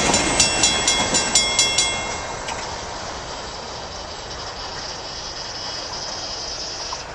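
Railroad grade-crossing bell ringing rapidly, about three to four strikes a second, over the rumble of a departing freight train, then stopping about two seconds in as the train clears and the gates start to rise. The receding train's steady noise carries on more quietly.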